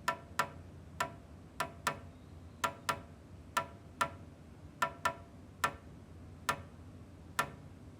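A Morse code message sent as sharp clicks, like a telegraph sounder, at uneven spacing that marks out dots and dashes.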